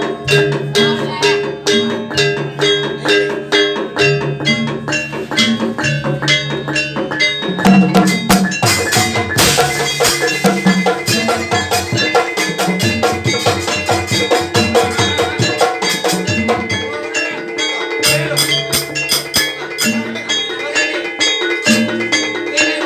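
Gamelan ensemble playing jaranan music: dense, fast strikes on metal percussion over a repeating pattern of low pitched notes and drums, growing busier and louder about eight seconds in.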